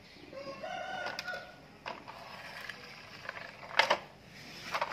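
A rooster crowing in the background once, for about a second near the start. Then hard plastic toy trucks knock and clack as they are picked up by hand, with a sharp knock a little before the end and a louder clatter at the very end.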